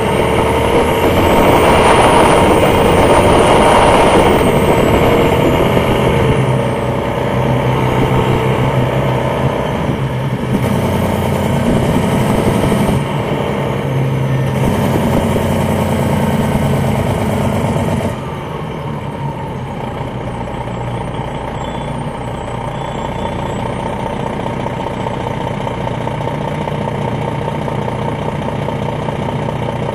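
The Detroit Diesel Series 60 diesel engine of a 2001 MCI D4000 coach bus, heard from inside the cabin while under way. Its pitch rises and then falls over the first several seconds, and the sound drops suddenly to a quieter, steadier level about 18 seconds in.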